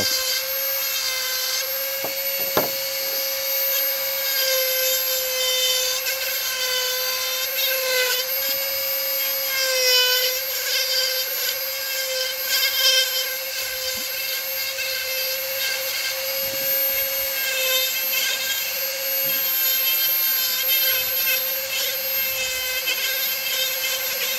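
Dremel rotary tool with a flexible-shaft handpiece running at high speed while a small burr carves wood. A steady whine whose pitch dips briefly now and then as the burr bites.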